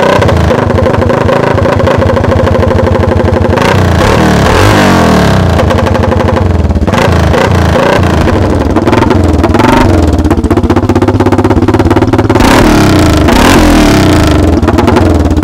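Vintage 250 Honda twinshock dirt bike engine running, revved up and let back down several times.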